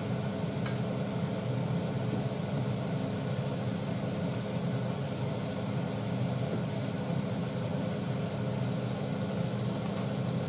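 Steady low mechanical hum of kitchen appliances running, with a single light click about a second in.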